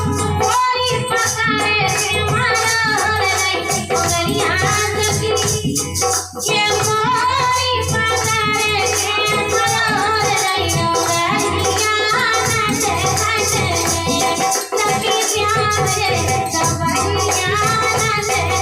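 Bundeli folk song music: a woman's voice singing over a steady beat of rattling percussion and melodic accompaniment.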